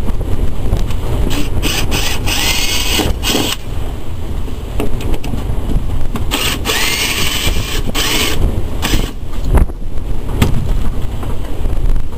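Cordless drill-driver running in two bursts of about two seconds each, its whine rising as it spins up, over steady wind buffeting the microphone.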